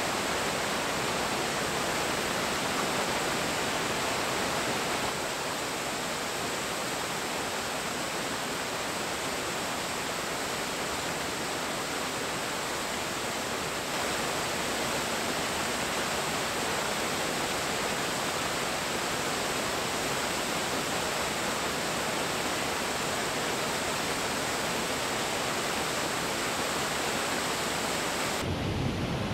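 Steady rushing of a waterfall pouring into a rocky pool, an even noise with no breaks. Near the end it turns duller and deeper.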